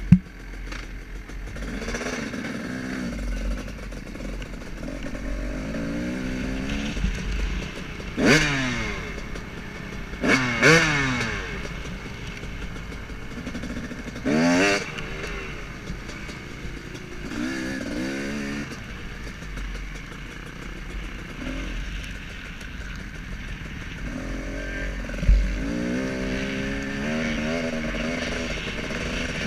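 KTM 300 SX two-stroke motocross bike running under the rider, its engine pitch rising and falling as it is ridden, with three sharp revs that climb and drop back in the middle of the stretch. A single short thump comes a little past three-quarters of the way through.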